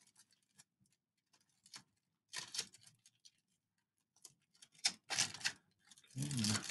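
Aluminium foil crinkling faintly in short, scattered bursts as it is folded and pressed by hand around a cardboard tube, with quiet gaps between.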